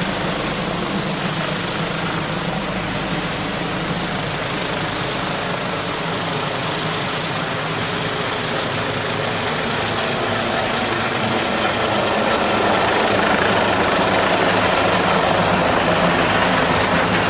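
Airbus H145 twin-turbine helicopter in flight just after lift-off, its rotors and engines making a steady noise that grows a little louder about twelve seconds in.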